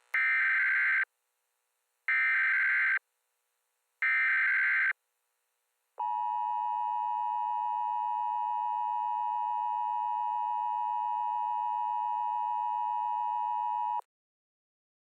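Emergency Alert System signal: three SAME header data bursts, each a harsh warbling screech of about a second, a second apart. They are followed by the two-tone EAS attention signal held steady for about eight seconds, which then cuts off abruptly. This is the sequence that opens and triggers an emergency alert broadcast.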